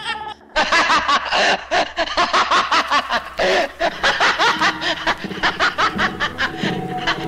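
A man laughing in a long, rapid run of cackles, about five a second, over a boom-bap hip-hop beat that grows louder after about five seconds.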